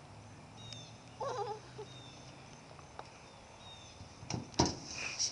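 A brief wavering high-pitched squeak or vocal sound a little over a second in, then a sharp thump with a knock, the loudest sound, a bit over four seconds in.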